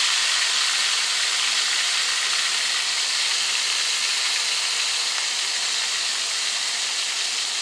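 Flour-coated shrimp frying in hot oil in a cast-iron skillet: a steady, even sizzle that eases off slightly.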